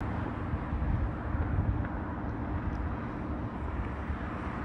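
Steady low outdoor rumble of background ambience, with no crossing bells or train sound.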